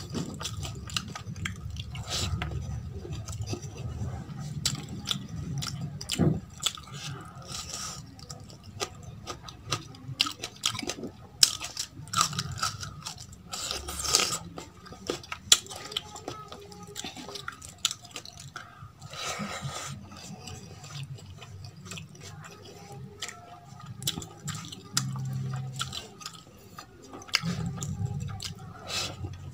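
Close-up eating sounds: fingers mixing rice and rajma gravy on a steel plate, with chewing and crunchy bites, heard as many short sharp clicks and smacks.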